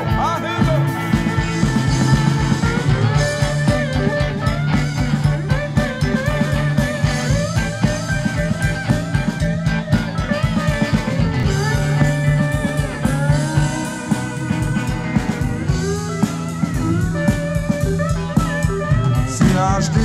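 Country-rock band playing an instrumental break: an electric guitar lead with bending notes over a steady drum beat.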